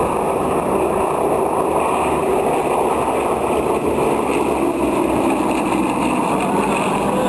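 Radial engines of a formation of Yakovlev Yak-52 aerobatic aircraft droning steadily overhead.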